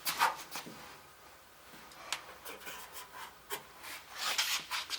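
Hands handling parts: scattered rubbing, rustling and scraping with a few light clicks, as the new headlight switch is fetched and handled. The loudest bits come right at the start and again about four seconds in.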